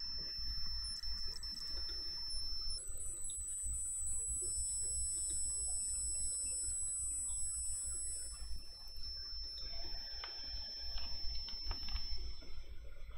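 Faint high-pitched electronic whine made of steady tones that switch on, off and shift pitch a few times before stopping near the end, over a steady low hum. A few faint mouse clicks come near the end.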